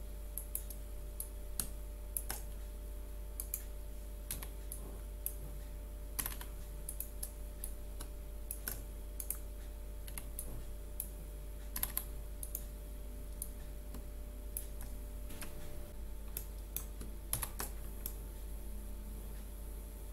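Computer keyboard keystrokes, sparse and irregular, one or two sharp clicks at a time with short pauses between, over a steady low electrical hum.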